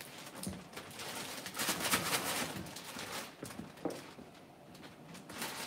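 Boiled crawfish being handled and peeled at a table: shells cracking and crinkling, with paper rustling and scattered small clicks, busiest in the first half.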